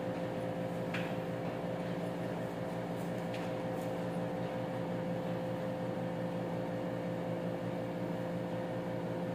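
Steady mechanical hum with a constant tone, with a few faint clicks from a carbine being handled about one second and three and a half seconds in.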